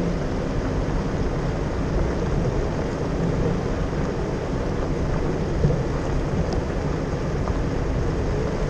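Jeep driving along a dirt road: a steady low rumble of engine and tyres on dirt.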